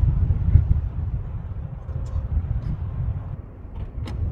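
Uneven low rumble of wind and an SUV rolling over gravel, with a single sharp click near the end.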